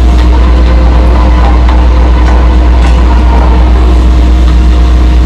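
Heavy engine of a bore-drilling rig running steadily at constant speed, with a strong deep hum.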